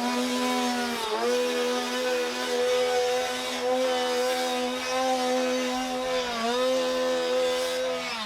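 Chainsaw engine running at high revs, holding a steady pitch that sags briefly about a second in and again about six and a half seconds in.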